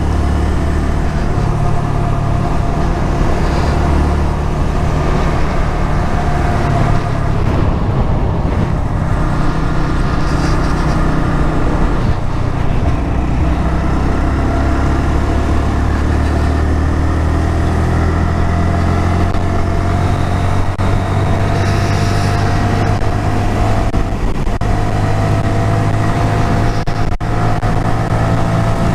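Honda MSX125SF's 125 cc air-cooled single-cylinder four-stroke engine running under way at road speed, its note rising and falling with the throttle and climbing steadily over the last several seconds as the bike accelerates, over a constant low rush of wind.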